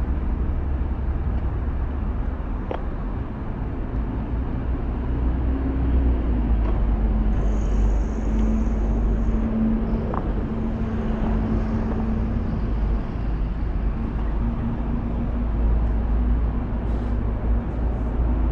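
City street traffic: steady road noise with a low rumble of passing vehicles. A steady engine hum joins about six seconds in.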